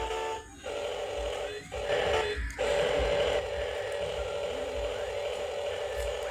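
RC excavator's hydraulic pump motor whining steadily at one pitch, cutting out briefly a few times in the first couple of seconds.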